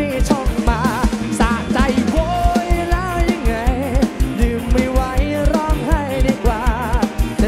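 Live band playing an upbeat dance song: a steady, fast kick-drum beat with drum kit and hand percussion under a male singer's voice with wide vibrato.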